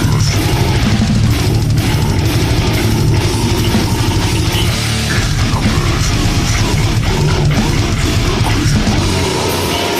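Death metal music: distorted electric guitars and a drum kit playing at full, steady intensity.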